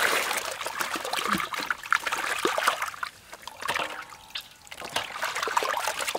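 Water pouring into a steel basin of fish. About a second in the steady pour gives way to irregular splashing and sloshing as hands rub and turn the whole fish in the water.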